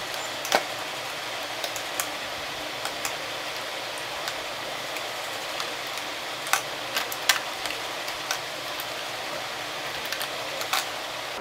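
Scattered light clicks and taps as kohl pencils are set down into a drawer organizer, about a dozen over the stretch, over a steady background hiss.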